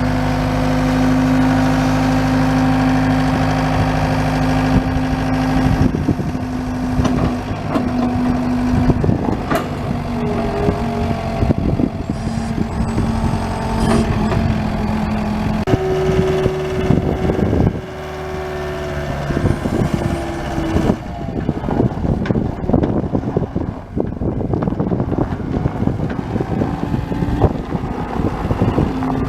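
John Deere 320E skid steer's diesel engine running, steady for the first six seconds, then with its pitch shifting up and down and frequent clanks and rattles as the machine is worked.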